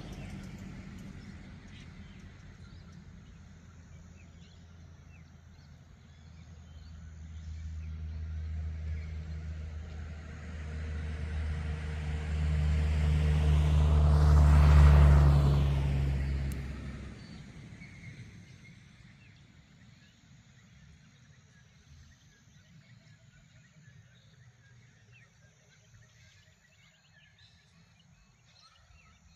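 A car approaches and drives past, its engine hum and tyre noise building to a peak about halfway through and then fading away. Faint bird chirps remain after it has gone.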